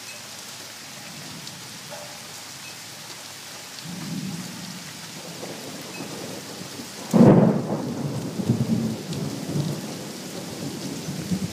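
Thunder over a steady hiss. A low rumble swells about four seconds in, then a loud, sudden peal breaks about seven seconds in and keeps rolling for several seconds.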